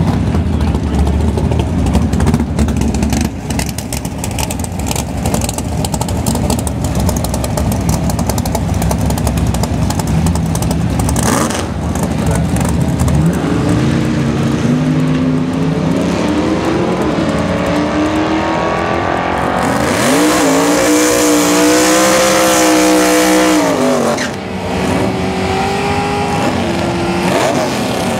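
Naturally aspirated drag-racing V8 engines rumbling at idle, then one revving up and doing a burnout: about 20 seconds in, the revs are held high over tyre squeal for some four seconds before dropping back. The engine is then held at revs again near the end.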